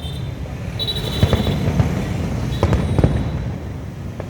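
Fireworks display going off: a handful of sharp bangs over a continuous low rumble of bursts.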